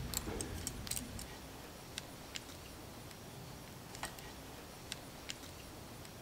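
Small sharp clicks and taps of steel digital calipers being slid open and set against the steel junction box of the mill's spindle motor, several quick clicks in the first second, then single clicks every second or so.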